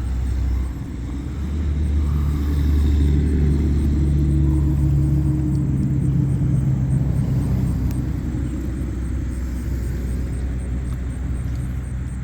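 A low, steady engine rumble, like a motor vehicle running, swelling a couple of seconds in and easing a little toward the end.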